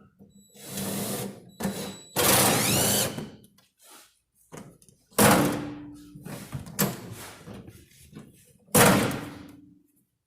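Clunks and bangs from a 2009 Ford Ranger tailgate and its latch being worked, with a second-long rattling noise about two seconds in. Two sharp slams, about five and nine seconds in, each ring briefly.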